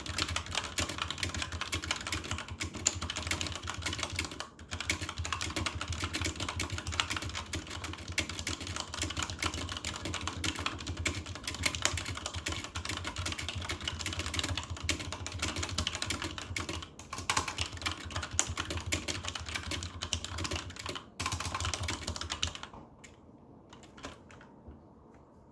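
Fast, continuous typing on a computer keyboard: a dense stream of key clicks with a few brief pauses, stopping about three seconds before the end.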